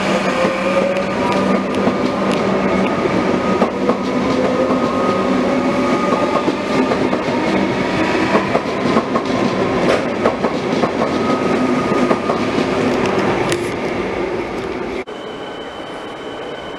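Metro electric suburban train running past below, its traction motors giving a slowly rising whine over the rumble and clatter of the wheels on the rails. About 15 s in it cuts off abruptly to a quieter steady background with a thin high tone.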